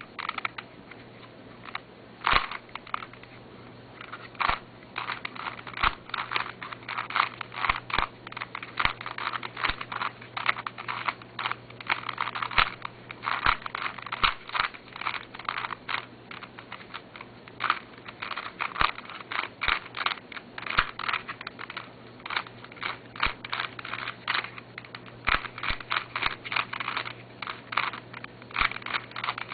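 Ungreased plastic Rubik's Cube being turned fast by hand: rapid, irregular clacking of the layers, in runs of quick turns broken by short pauses.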